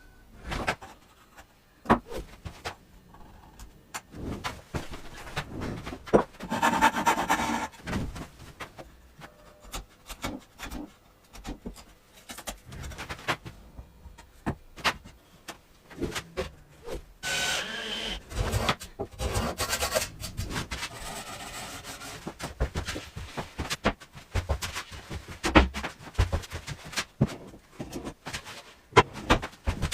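Hand work on wood: stretches of rubbing against wood, with many sharp knocks and taps scattered throughout.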